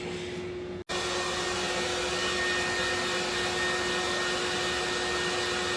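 Steady whirring of a small electric motor with a constant hum. It cuts out for an instant about a second in, then carries on slightly louder.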